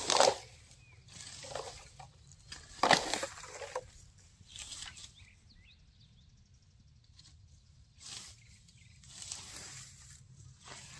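A long-handled garden tool dragged and scraped through dry grass and soil in separate strokes. The strokes are loudest at the very start and about three seconds in, with softer strokes between them.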